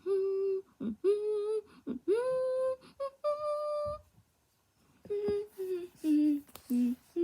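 A woman's voice humming a wordless tune: long held notes that step upward in pitch over the first four seconds, then, after a short pause, a run of shorter, lower notes.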